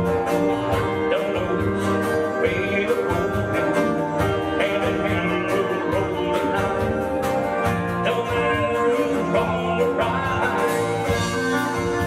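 A live country band playing a mid-tempo song: acoustic and electric guitars, electric bass and a drum kit keeping a steady beat.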